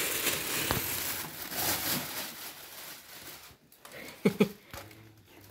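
Plastic bag rustling as it is pulled off a tower fan, fading out after about three seconds, then two short, loud knocks about four seconds in as the fan's plastic body is handled.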